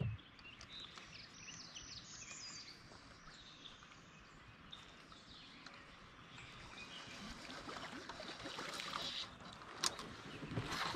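Faint open-water ambience around a kayak: scattered small bird chirps over a soft wash of water noise that swells a little as the kayak moves, with a sharp click near the end.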